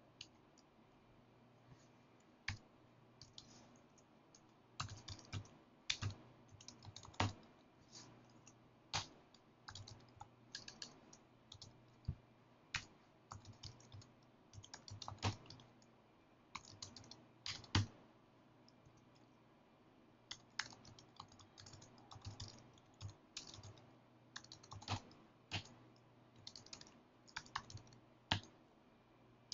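Typing on a computer keyboard: quick, irregular keystrokes in short runs with brief pauses between them.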